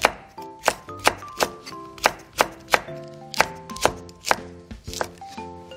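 Kitchen knife slicing a red chili pepper on a wooden cutting board: a sharp tap of the blade on the board about three times a second.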